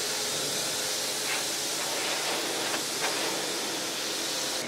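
Kärcher pressure washer jet spraying water against a car's bodywork: a steady hiss of spray.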